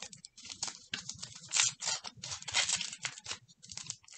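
Gift wrapping paper being torn and crinkled by hand as a small wrapped gift is opened, in irregular rustling strokes.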